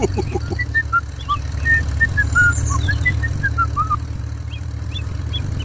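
Tractor engine running with a steady low rumble, while small birds chirp in quick short notes over it during the first few seconds.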